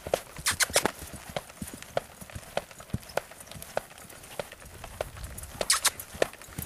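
Hoofbeats of a saddled Paint mare trotting on the dirt of a round pen: a steady beat of dull thuds and sharper clicks, a little under two a second.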